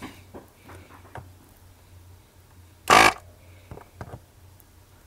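Electric vacuum desoldering gun (S-993A) with its built-in pump buzzing harshly for about a third of a second, about three seconds in, as the trigger is pulled to suck molten solder off a circuit board joint. A low hum and a few small clicks lie between.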